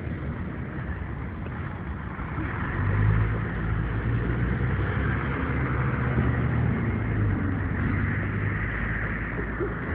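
City street traffic: a steady hum of passing cars, with a low rumble that grows louder about three seconds in.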